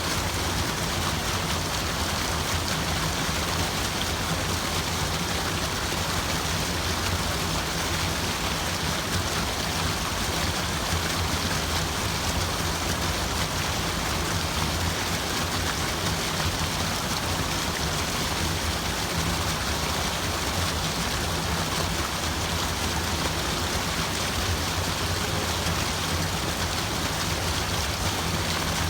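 Steady rushing water: an even, unbroken wash of noise with a low rumble underneath.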